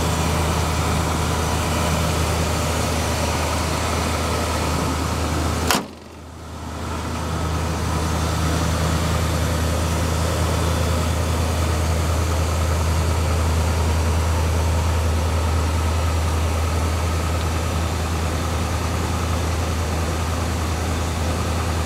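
Dodge 318 V8 idling steadily, with the hood slammed shut about six seconds in.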